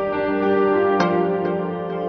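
Instrumental background music: held notes, with a new note struck about a second in.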